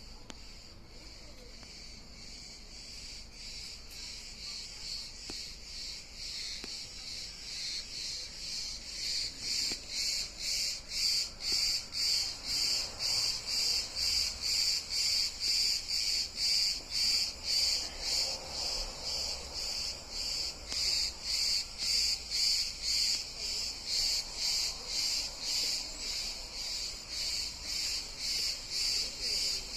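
Singing insects (cırcır böceği) calling in a high-pitched pulsing rhythm, about two pulses a second, growing louder over the first ten seconds and then holding steady.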